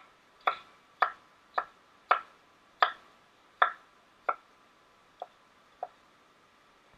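Kitchen knife chopping carrot strips on a cutting board: about ten separate cuts at a slow, uneven pace, the last two lighter, stopping about six seconds in.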